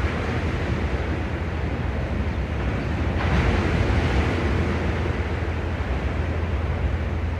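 Sea waves washing onto the shore, with a wave surging in about three seconds in, over a steady low rumble of wind on the microphone.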